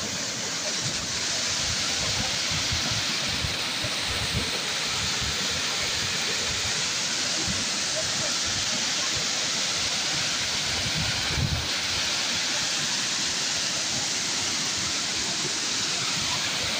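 Glacial lake outburst floodwater rushing steadily, with low wind buffets on the microphone.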